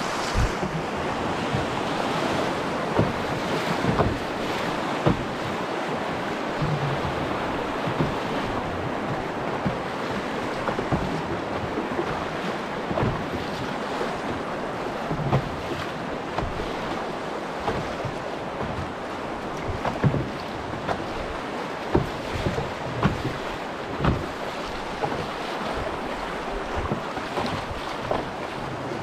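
Rushing white water of a river rapid running high, with wind buffeting the microphone and frequent short knocks through it.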